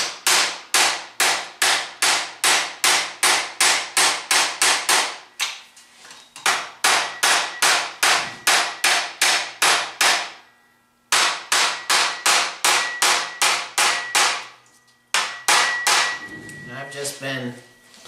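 Body hammer striking a sheet-steel patch panel clamped over a wooden and steel buck, hammer-forming and planishing its wheel-arch edge. The blows are fast and even, about three a second, in runs of several seconds with short pauses between them. The later blows leave a faint metallic ring, and the last few are lighter.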